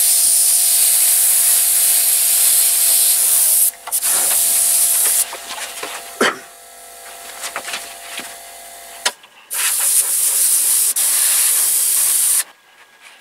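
Airbrush spraying paint with a steady high hiss of compressed air. The hiss stops a few seconds in, returns briefly, then comes back for a few seconds near the end, with light clicks in the pauses.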